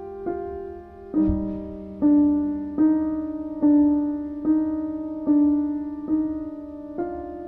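Slow piano music, a note or chord struck about every eight-tenths of a second and left to ring, with a deep low boom about a second in.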